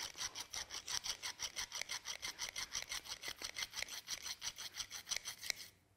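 Carbide cutter of a router bit stroked quickly back and forth across a small diamond hone, a gritty metallic rasp repeated several times a second at an even pace, stopping just before the end. It is the sound of honing the flat face of the carbide to refresh the cutting edge.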